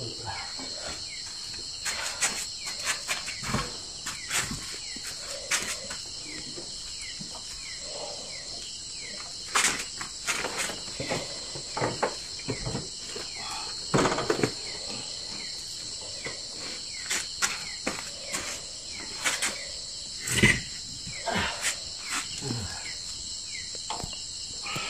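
A steady, high-pitched chorus of night insects, with scattered knocks and metallic clinks from work on a motorcycle's rear wheel; the loudest knocks come about ten, fourteen and twenty seconds in.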